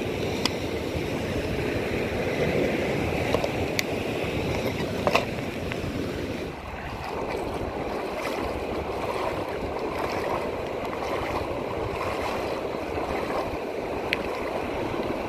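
Shallow sea surf washing steadily around the feet, with waves breaking further out and a few sharp small clicks scattered through.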